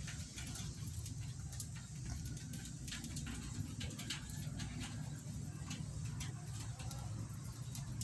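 Budgerigars pecking and nibbling at fresh green leaves: irregular small clicks and rustles, over a low steady hum.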